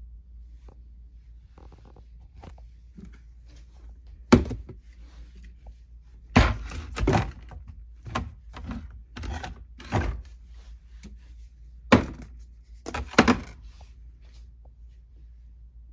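Items being set down and shifted on pantry shelves, likely bottles and plastic containers: a run of sharp knocks and clatters. The loudest knocks come about four seconds in, near six and a half seconds, and twice around twelve to thirteen seconds.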